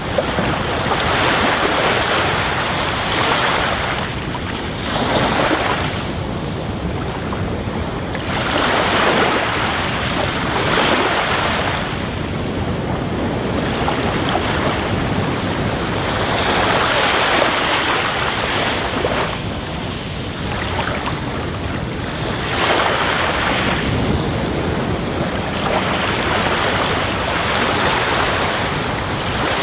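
Aquarium water bubbling and splashing steadily where a column of air bubbles breaks the surface, swelling and easing irregularly.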